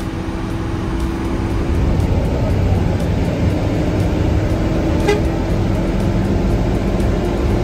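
Hino AK8 bus's diesel engine running on the road: a deep rumble that grows louder over the first two seconds, with a steady tone held above it.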